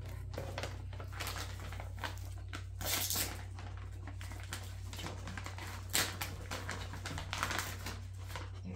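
Plastic dog-treat pouch crinkling and rustling as it is handled and opened, in short irregular bursts. The loudest rustle comes about three seconds in and a sharp click about six seconds in, over a steady low hum.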